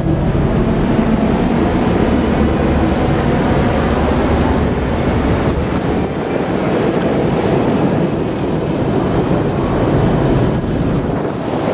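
Steady, loud rumble and rush of a car ferry under way at sea: engine drone, sea noise and wind on the open deck.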